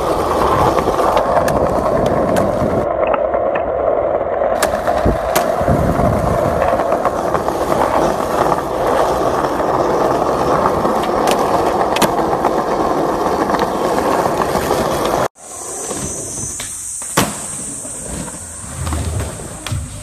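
Skateboard wheels rolling over stone paving: a steady grinding rumble broken by scattered sharp clicks. About fifteen seconds in it cuts off abruptly, and a quieter stretch follows with a steady high hiss and one sharp snap.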